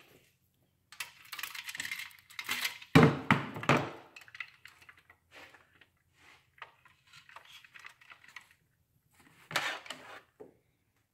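Metal engine parts and hand tools clinking and rattling as they are handled, in irregular bursts, loudest about three seconds in and again briefly near the end.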